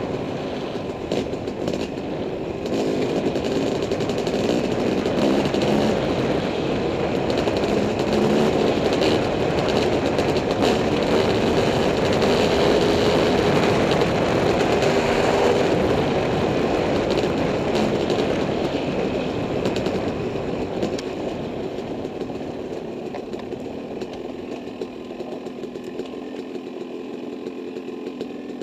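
Dirt bike engine running as the bike is ridden along a trail, heard from the rider's helmet camera. It is loudest around the middle and eases off, getting quieter, over the last several seconds.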